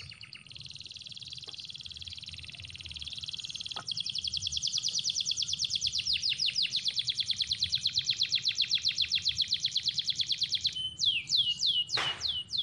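A small bird singing. It starts with a buzzy trill, then runs into a fast string of repeated downward-slurred notes, about eight a second, which slows into separate falling notes near the end.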